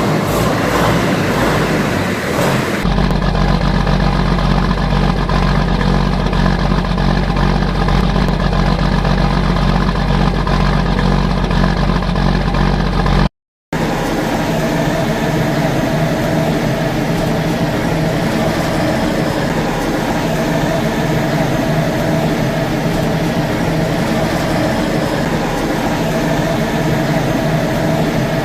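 John Deere 8960 tractor's diesel engine running steadily at a constant speed. The sound cuts out for a moment about halfway through, then the engine carries on with a different tone, including a steady whine.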